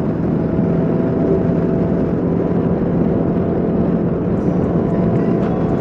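Kawasaki KLR650's single-cylinder four-stroke engine running at a steady cruising speed, its hum unchanging in pitch under heavy, constant wind rush.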